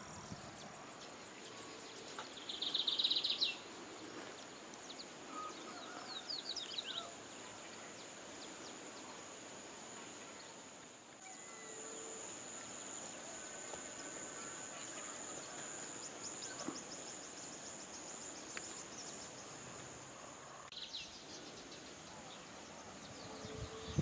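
Countryside ambience: a steady high-pitched insect drone throughout, with birds calling over it. The loudest is a short buzzy call about three seconds in, with further chirps around six to seven seconds and near the end.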